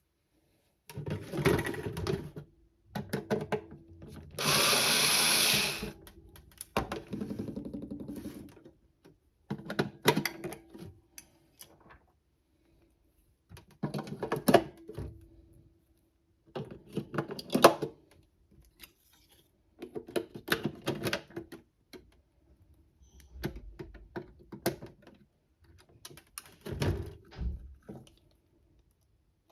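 Toy washing machines' small electric motors whirring in short bursts of a second or two, with gaps of silence between and clicks and knocks among them. About five seconds in comes one longer, louder, hissy burst.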